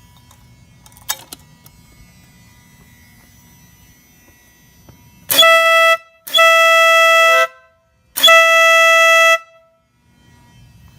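Denali SoundBomb air horn on an Indian Scout motorcycle sounding three times: a short blast, then two longer blasts of a little over a second each, all at one steady pitch.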